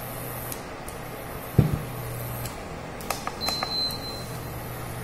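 Silicone spatula pushing butter around a nonstick frying pan on an induction cooktop, over a low steady hum. One knock about a second and a half in is the loudest sound, and a little after three seconds there is a quick run of light clicks with a brief high tone.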